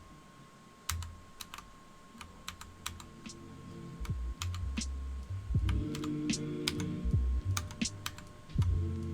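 Keys being typed on a Matrix Elite mechanical keyboard with brown switches and freshly fitted keycaps: scattered, irregular keystroke clicks, busier in the second half.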